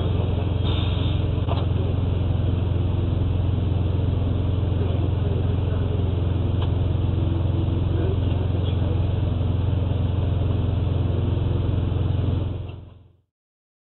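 Semi truck's diesel engine idling, a steady low rumble picked up by the dashcam inside the cab, with a couple of light clicks about a second in. The rumble fades out about a second before the end.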